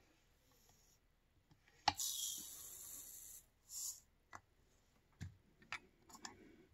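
Smokeless rifle powder pouring into a scale pan: a click, then a hissing trickle lasting about a second and a half, and a shorter second pour a moment later. A few light clicks of tools and brass on the bench follow.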